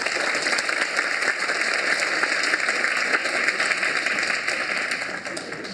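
Audience applauding, a steady patter of many hands that fades out near the end.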